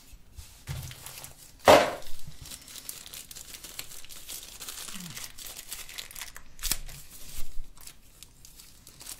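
Crinkling and rustling of the translucent bag around the phone's boxed earphones as it is handled and torn open, with a sharp, loud rustle about two seconds in and another near seven seconds.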